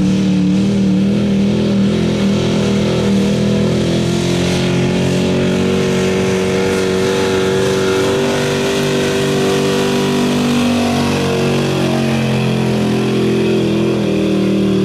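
1985 Chevrolet pickup's engine running at high, held revs under heavy load as it drags a truck-pull weight sled. The pitch wavers slightly at first, then stays fairly steady.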